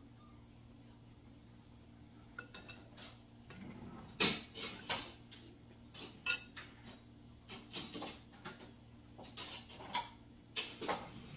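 Metal spoon and dishes clinking and scraping on a ceramic plate during a meal: an irregular run of sharp clinks starting about two seconds in, the loudest about four seconds in and near the end, over a steady low hum.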